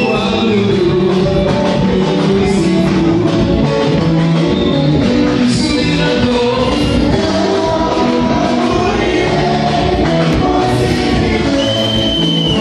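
Gospel music: singing voices over instruments, continuous and loud.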